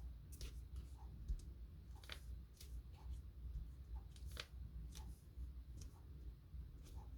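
Faint, irregular small clicks and light rustles of card stock being handled and pressed into place, about one or two clicks a second, over a low steady hum.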